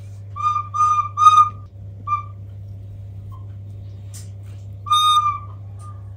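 A whistle blown in short toots, all on one steady high note: three quick toots, a short one, then a longer toot near the end that sags in pitch as it dies.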